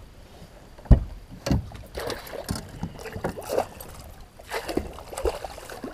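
A string of knocks and thuds on a bass boat, the loudest about a second in, with water splashing as a hooked pike is played beside the boat and a landing net is swung out.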